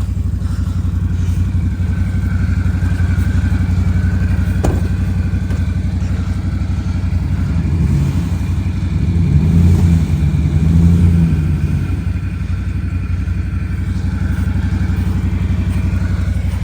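Vehicle engine running steadily at low revs, with a single sharp click a little under five seconds in. About eight seconds in it grows louder and rises and falls in pitch for a few seconds before settling back.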